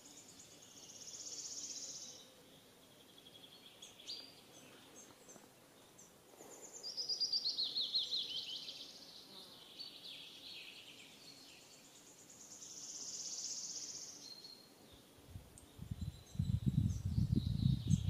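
Small songbirds singing: high, fast trills that swell and fade twice, and a quick series of notes falling in pitch about a third of the way in. Near the end a loud low rumble on the microphone covers them.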